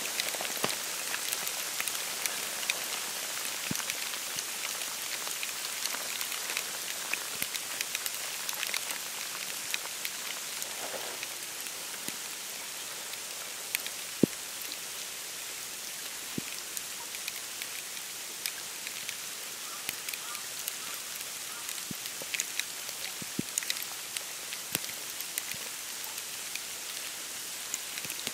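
Snow falling on dry reeds, bare branches and open marsh water, heard as a steady fine hiss like light rain with many small scattered ticks. The sharpest tick comes about fourteen seconds in.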